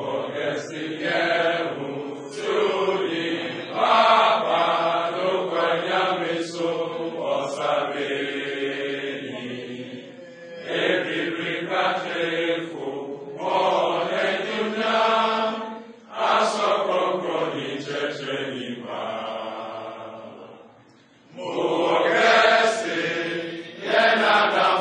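Voices chanting slowly in long held phrases, with short breaks between phrases about ten, sixteen and twenty-one seconds in.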